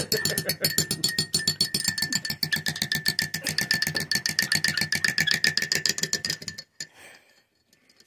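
A metal teaspoon rattled rapidly against the inside of a ceramic coffee mug by a monk parakeet holding it in its beak: fast, even clinking with a ringing tone from the mug, cutting off suddenly near the end.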